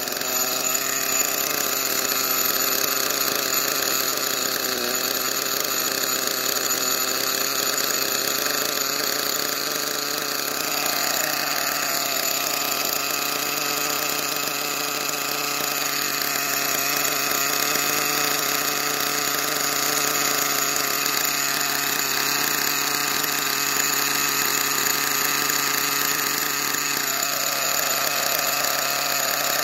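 Nitro RC truck engine running steadily at idle, a small high-revving motor whose pitch wavers a little now and then. The owner says it keeps flooding itself out.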